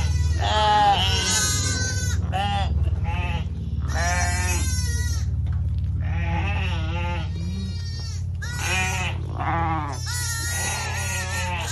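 Shetland sheep and lambs bleating, many separate calls one after another, some high and wavering, others lower.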